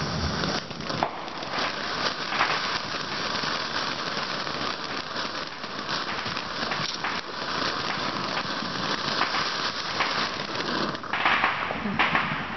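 Ground fountain firework spraying sparks, giving a steady hiss thick with fine crackling.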